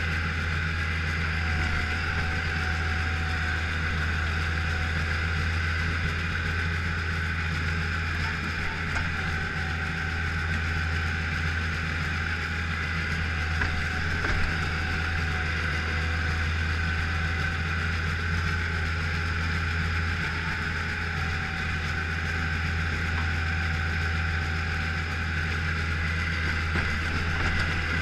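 Bobcat skid-steer loader's engine running steadily as the machine pushes snow with a front blade, heard from inside the cab: a constant low drone with a steady higher whine over it.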